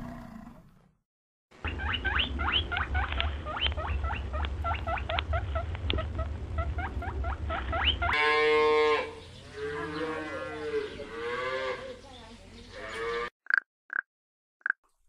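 A run of animal calls: rapid high chirping over a low rumble, then a long, low, wavering call with a mooing, cattle-like quality, then three short pitched croaks near the end.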